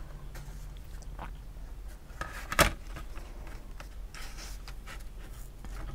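Die-cut card puzzle sheet being handled on a cutting mat: light rustling and small knocks of card, with one sharp tap about two and a half seconds in.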